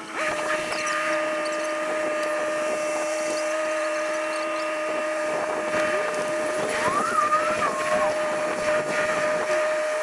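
Bobcat E26 mini excavator running with a steady high-pitched whine. About seven seconds in, a second engine rises and then falls in pitch, as the dump truck pulls away.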